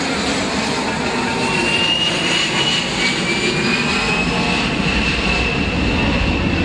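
Aircraft engines running loud and steady, with a high whine that slowly drifts down in pitch.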